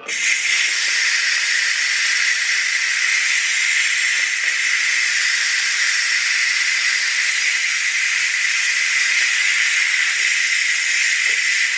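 Ninja Foodi pressure cooker venting through its pressure-release valve during a quick release: a loud, steady hiss of escaping steam that starts suddenly as the valve is turned to vent, the cooker letting off its built-up pressure after cooking.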